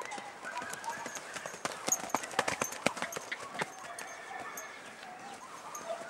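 Hoofbeats of a young grey PRE (Andalusian) stallion moving loose on sandy ground, with a quick run of sharp hoof strikes between about one and a half and three and a half seconds in.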